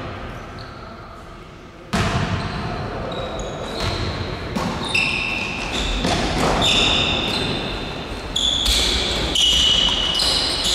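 Basketball game on a wooden gym floor: the ball bouncing and sneakers squeaking as players run, with a sudden loud knock about two seconds in.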